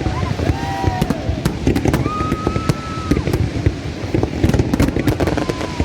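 Fireworks going off in rapid, irregular succession: many sharp bangs and crackles over a constant low rumble of bursts.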